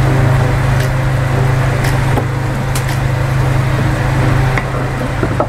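A steady low mechanical hum, with a few light clicks and taps as ingredients are picked off a cutting board and dropped into a pot.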